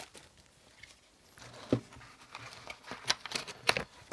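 Handling sounds: a hard plastic handheld thermal camera set down on a desk with one knock, then light clicks and paper rustles as a card is lifted out of its fabric case.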